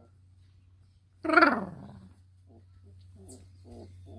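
A three-week-old Redbone Coonhound puppy gives one loud bark that falls in pitch, about a second in, followed by a few short, soft grunts and whimpers from the litter. A steady low hum runs underneath.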